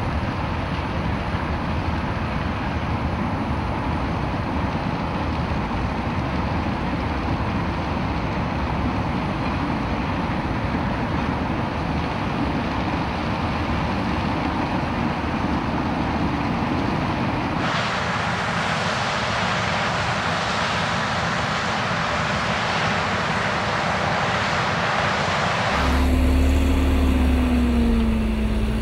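Combine harvester running as it cuts standing maize, mixed with a passing container freight train, a steady mechanical noise that turns hissier about two thirds of the way through. Near the end a John Deere tractor towing a grain cart takes over with a deep engine drone whose note falls slightly.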